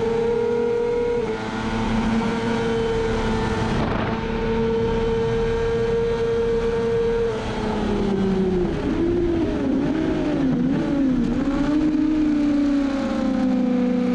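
Kawasaki ZX-6R inline-four race engine at full throttle, holding a steady high pitch in top gear. About seven seconds in it shuts off for braking and the pitch drops in a run of downshift blips, wavering up and down, before settling at lower revs, with wind noise over the bike throughout.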